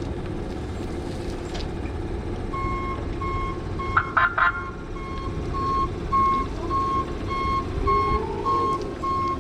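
Electric forklift's reversing alarm beeping about twice a second as the truck backs up, over a steady drive-motor hum that whines up in pitch near the end. About four seconds in, three short loud sounds cut across the beeps.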